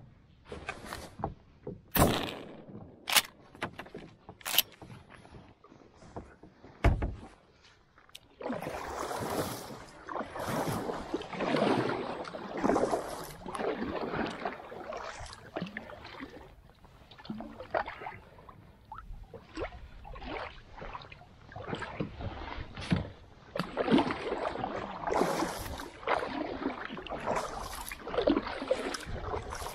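Kayak paddle strokes in the water, a splashing swish about every second, starting about eight seconds in. Before that come three sharp knocks and a dull thump.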